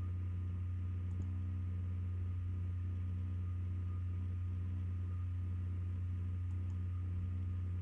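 Steady low electrical hum on a computer recording's microphone line, an even unchanging drone with nothing else clearly heard.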